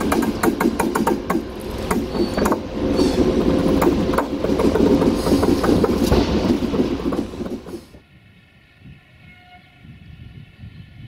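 Sulzer-engined diesel-electric locomotive running as it moves slowly away along the track, its engine rumble mixed with sharp clicks of the wheels over the rails. About eight seconds in the sound drops abruptly to a faint, steady background.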